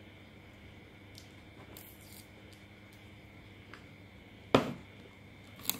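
Clear plastic cake collar being handled as it is wrapped around a cake layer: faint rustles and ticks, then one loud, sharp snap about four and a half seconds in and a smaller click near the end.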